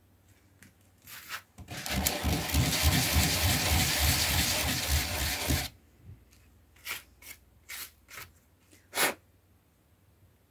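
A rusty doorknob being scrubbed by hand against coarse sandpaper: a continuous rasping sanding for about four seconds, then a few short separate scrapes.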